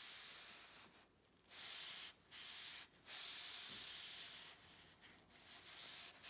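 Paper towel rubbing penetrating oil into the end and edge of a wooden cutting board: a scratchy rubbing in about six strokes, each half a second to a second long, with short pauses between them.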